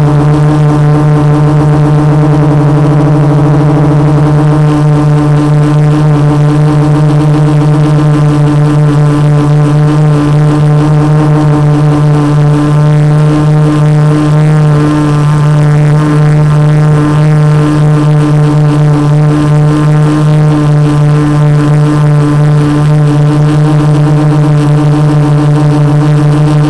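Quadcopter's four Multistar 2212 920kv brushless motors spinning 12x4.2 carbon-fibre props at hover, a loud steady droning hum that wavers slightly without changing pitch.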